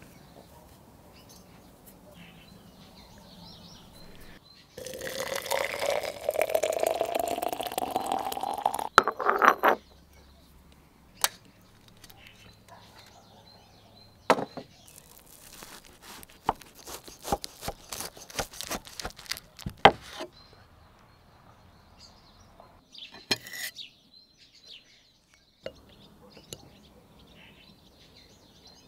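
Liquid poured into a container for about five seconds, its pitch rising steadily as the vessel fills. Then a run of sharp clinks and knocks of clay and glass tableware and utensils, with a single clink later on and faint birdsong behind.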